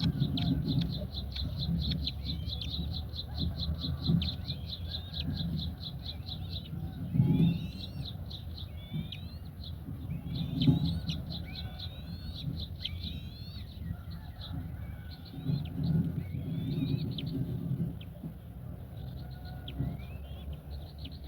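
Small birds chirping: a fast run of repeated high notes for the first seven seconds or so, then varied sweeping chirps, over a low rumble with a few dull thumps.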